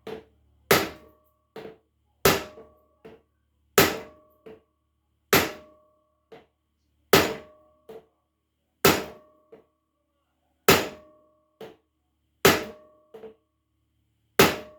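Hammer blows driving the rust-seized piston of a 1952 Scott Atwater outboard down its bore to free it: about nine heavy strikes, one every second and a half or so, each with a short metallic ring and followed by a lighter tap.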